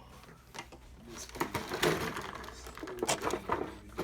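Quick, uneven plastic clicks and rattles as a Beyblade spinning top is handled, starting about a second in.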